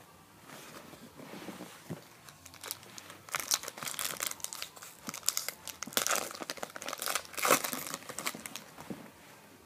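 Plastic wrapper of a hockey card pack being torn open and crinkled, in crackling spurts that pick up about three seconds in and are loudest near the end.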